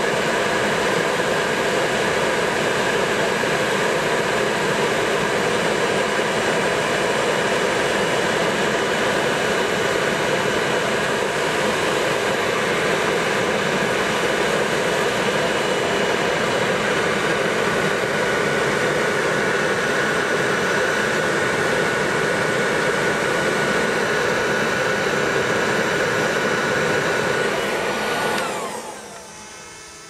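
Leaf blower running flat out: a loud, steady rush of air with a high whine through it. Near the end it is switched off and the sound drops away quickly as it winds down.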